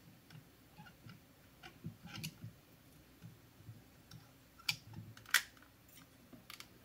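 Faint handling clicks and taps from desoldering a battery pack's circuit board with a soldering gun and working it loose from the cells. The sharpest clicks come a little past two thirds of the way in.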